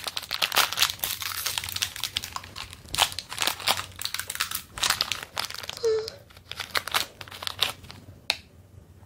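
Foil snack wrapper crinkling in the hands and being torn open: dense, rapid crackles that thin out about eight seconds in.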